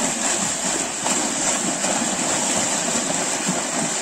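Continuous heavy splashing as several swimmers thrash and kick together in pond water.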